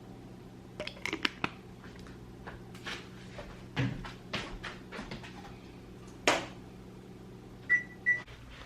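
Items being handled and set down while a drink is made: a run of sharp clicks and knocks, then two short, clear high tones near the end, over a steady low hum.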